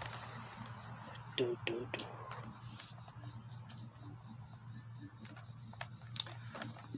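Crickets trilling steadily in a high continuous drone, with a few soft clicks from a cardboard box being handled and a brief murmur about a second and a half in.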